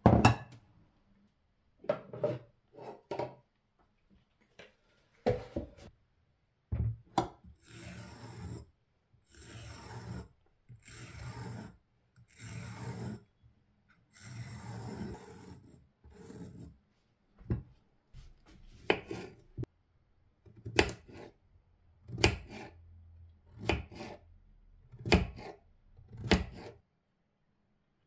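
A fork scraping out the inside of a whole zucchini in a series of long rasping strokes, about one a second. Then a knife cutting the zucchini into rounds on a wooden cutting board, in single sharp knocks.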